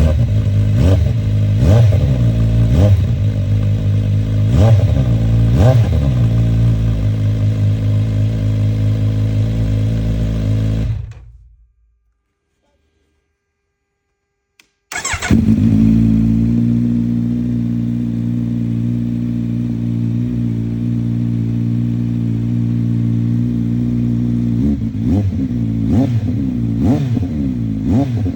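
Kawasaki Z900 inline-four motorcycle engine idling with quick throttle blips, about five in the first six seconds. The sound fades to silence for about four seconds, then the engine is heard idling again and is blipped a few more times near the end.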